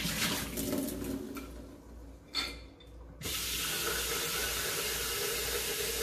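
Water splashing out through a jar's mesh sprouting lid into a stainless steel sink, with a short knock a couple of seconds in. About three seconds in, the kitchen tap is turned on and runs in a steady stream, refilling the jar with rinse water.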